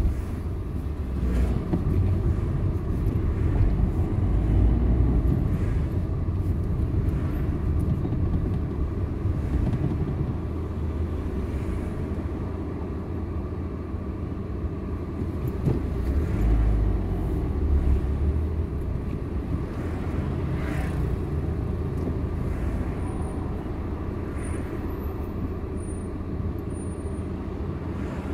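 Low rumble of a car's engine and road noise heard inside its cabin in slow town traffic. It is louder over the first several seconds and settles lower as the car queues.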